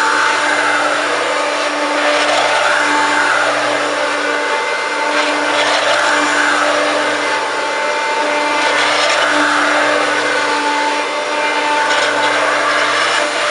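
Hoover Turbopower 1 U2798 upright vacuum cleaner running flat out on carpet, its motor note swelling and dipping about every three seconds as it works. The owner calls the motor sound very, very worn out.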